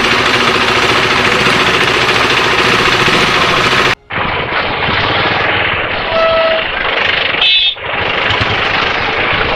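Motorcycle engine running at low speed, heard through heavy wind and rain buffeting a helmet-mounted camera's microphone as a loud, rattling rumble. The sound cuts off abruptly about four seconds in and picks up again, duller, with a short dropout near the end.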